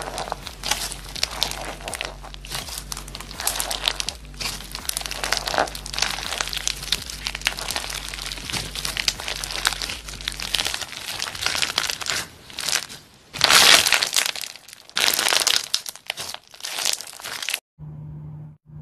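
Clear slime packed with large colourful beads being squeezed and stretched by hand: a dense, irregular crackling and popping. It cuts off suddenly near the end, leaving only a faint low hum.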